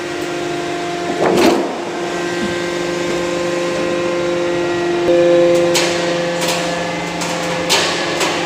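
Workshop machinery running with a steady hum. About five seconds in the hum gets louder. Short noisy bursts and clicks come once early on and several times near the end.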